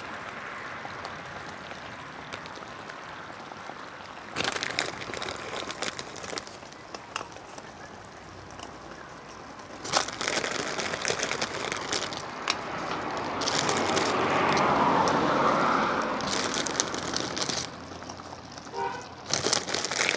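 A plastic crackers packet crinkling in several short bursts as crackers are pulled out and dropped into a pan. A louder rushing noise swells for a couple of seconds about two-thirds of the way through.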